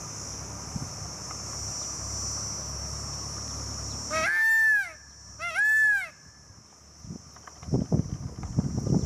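Peacock (Indian peafowl) calling twice, about four and five and a half seconds in: two loud, drawn-out wails, each rising and then falling away. A steady high insect drone runs beneath until the first call, and crackling rustles start near the end.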